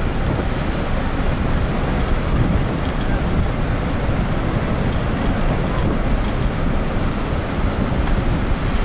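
Ocean surf breaking and washing up on a sandy beach, a steady rush of noise, with wind buffeting the microphone.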